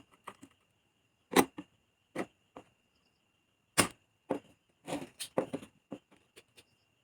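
Spring-loaded desoldering pump snapping as its plunger is released to suck molten solder off an amplifier IC's joints: two loud snaps about two and a half seconds apart, with lighter clicks and taps between and after.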